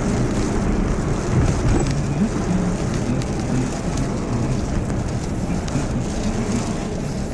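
Typhoon wind and rain: a steady, loud rushing noise, heaviest at the low end.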